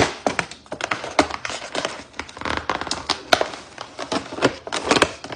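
Cardboard and plastic packaging of a fidget-toy advent calendar being opened by hand: irregular crinkling, crackling and small tearing sounds with sharp clicks.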